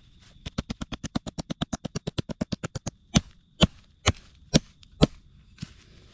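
Meat cleaver pounding raw wild turkey breasts to flatten and tenderise them. A fast run of light blows, about nine a second, lasts a couple of seconds, then come five heavy whacks about half a second apart.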